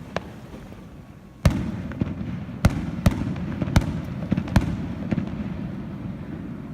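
Aerial firework shells bursting: about six sharp bangs in the space of four seconds, the first and loudest about a second and a half in, over a steady low rumble of echoing blasts.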